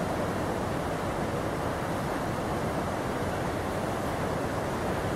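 Steady rush of moving river water, an even noise with no breaks or changes in level.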